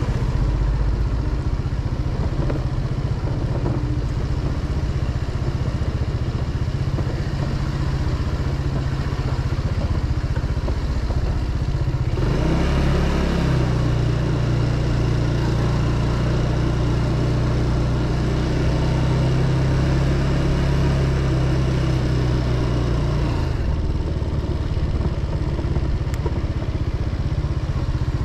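Motorcycle engine running as the bike is ridden, with steady road noise. From about twelve seconds in to about twenty-three seconds, the engine note is stronger and steadier, then it drops back.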